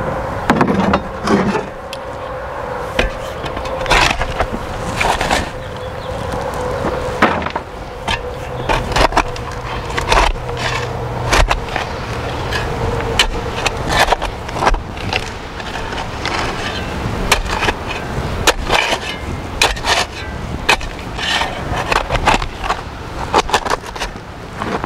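Steel shovel blade repeatedly jabbing and scraping into hard compacted gravel, breaking it up in irregular strikes every second or so.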